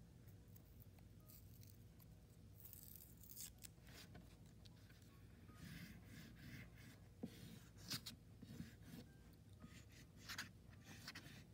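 Faint scratching of an oil pastel stick rubbed across paper in short strokes, a few early on and then a run of strokes through the second half.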